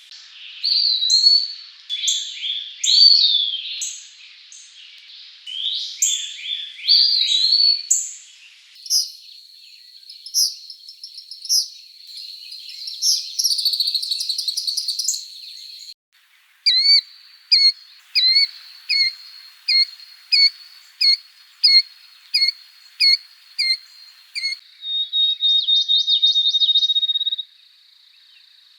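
Songbirds singing, two different birds one after the other. First come varied high whistled phrases over a thin, steady high tone. About halfway through the bird changes: a short, high chirp is repeated about once a second, then a brief buzzy trill comes near the end.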